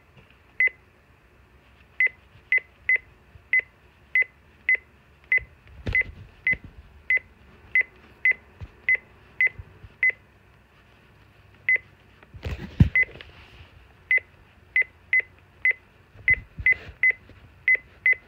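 Midland WR-300 weather radio's key beeps: short, high, identical beeps, about two a second, each one a button press stepping the clock setting forward a minute at a time. The run breaks briefly a little past halfway, where a couple of thumps come, the loudest of them about two thirds of the way through.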